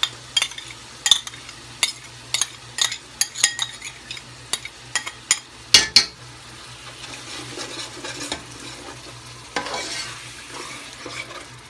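A metal spoon clinks and scrapes as yogurt is spooned into a steel pot of frying tomato masala, with sharp clicks over the first half. In the second half the masala sizzles and scrapes as the yogurt is stirred in with a perforated metal skimmer.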